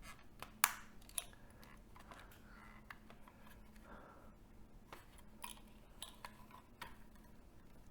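Faint, scattered clicks and small taps of pliers and plastic parts being handled during disassembly, the sharpest about half a second in.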